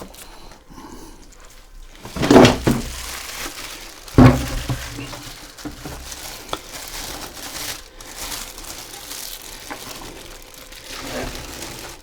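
Plastic packaging wrap crinkling and rustling as it is pulled off and handled around a newly unboxed inverter. There are two louder bumps of handling about two and four seconds in.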